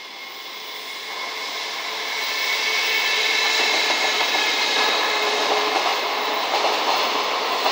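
Container freight train rolling past, its sound building over the first few seconds and then holding loud, with a steady high squeal from the wheels and clacking over the rail joints in the second half.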